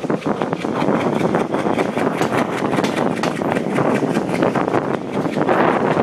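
Wind rushing over the microphone with the steady rumble and frequent clatter of a passenger coach's wheels on the track, heard from the coach's open doorway as the diesel-hauled express pulls out and gathers speed.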